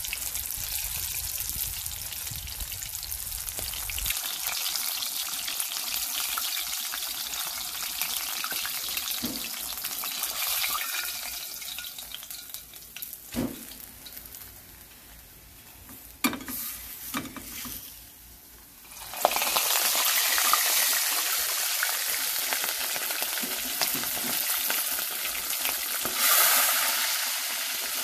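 Unbreaded chicken legs deep-frying in hot oil in a cast iron wok: a steady sizzle that dies down past the middle, with a couple of sharp clicks. About two-thirds of the way through it flares up loudly as more chicken goes into the oil, and it surges again near the end.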